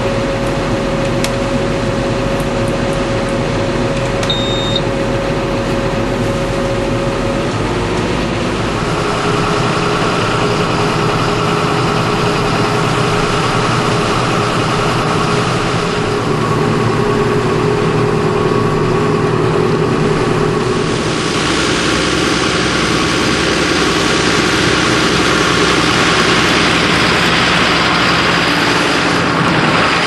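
John Deere 6930 tractor's six-cylinder diesel engine running steadily while pulling a four-furrow reversible plough. Its note changes about eight seconds in, and a rush of noise grows louder over the last third.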